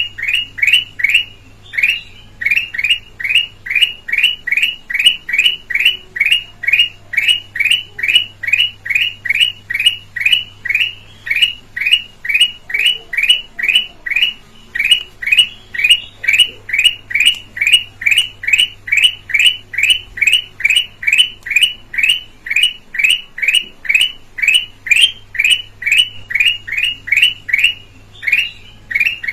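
Kutilang emas (red-eyed yellow bulbul) calling in a rapid, even series of short, clear, downward-sweeping notes, about three a second, with a few brief pauses.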